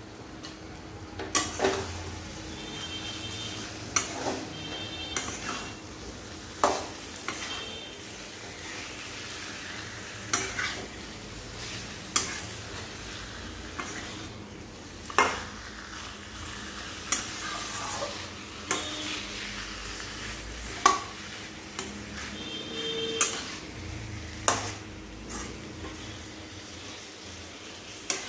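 A spoon stirring and scraping raw chicken pieces through frying masala in a kadhai, knocking sharply against the pan every second or two over a steady sizzle.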